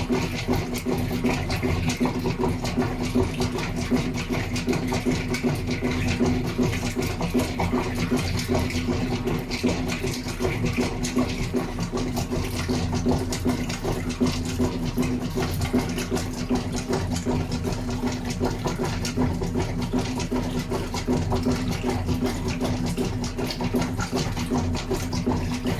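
GE Profile washing machine running, its motor giving a steady, even hum.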